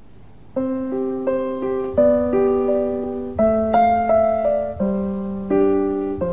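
Piano music that starts about half a second in, each note struck and fading in a flowing pattern, over faint hiss.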